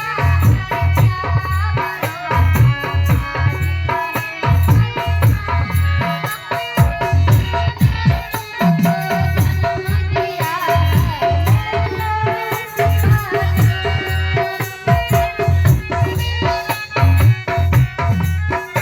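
Instrumental music with a steady, heavy drum beat, a shaker-like rattle and melodic instrument lines.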